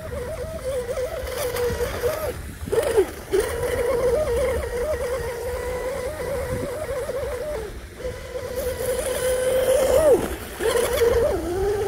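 An RC speedboat's SSS 2960 3000kv brushless motor and three-blade Oxidean prop running at speed on the water: a steady whine that wavers in pitch. It drops and recovers briefly about three seconds in and again near the end.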